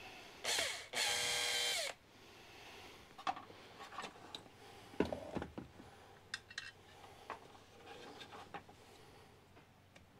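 Cordless drill/driver backing a screw out of a bench grinder's base: a short spin about half a second in, then a second run of about a second. Light clicks and scrapes follow as the screws and metal base are handled.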